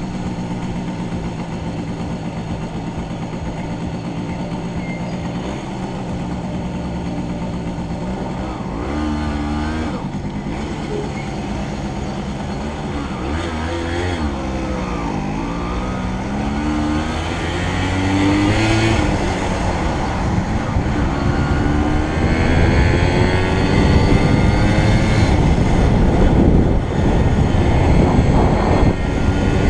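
Motorcycle engine running steadily at low speed, then accelerating through the gears, its pitch rising and dropping repeatedly from about nine to twenty seconds in. Wind rush grows louder as the speed builds near the end.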